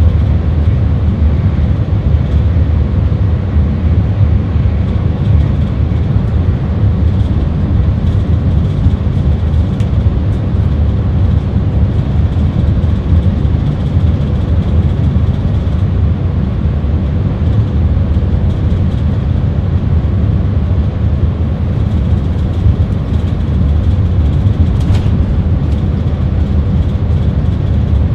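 Stadler FLIRT 3 electric multiple unit running along the line, heard from the driver's cab: a steady low rumble with a faint steady hum over it.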